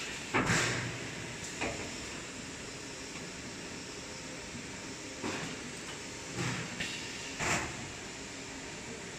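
Toilet paper production line machinery running with a steady hum. Several short sliding clunks come at uneven intervals.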